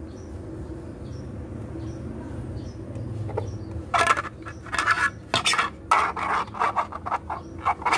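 Parts of a 3D-printed pot mould being handled, scraping and clicking against each other in a quick, irregular run of strokes that starts about halfway through. A low steady hum sits under the first half.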